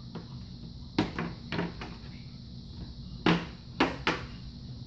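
Small plastic Play-Doh tubs and lids knocking and clicking as they are handled: a cluster of four knocks about a second in, then three sharper ones a little past three seconds, the first of these the loudest.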